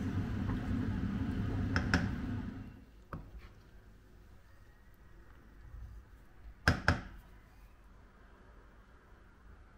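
A steady low hum, like a small motor or fan running, cuts out about two and a half seconds in, just after a pair of clicks. Later come two sharp knocks close together, then only quiet room tone.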